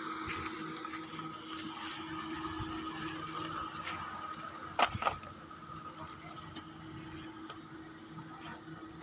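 Steady mechanical hum with an even whine, and two sharp clicks about five seconds in.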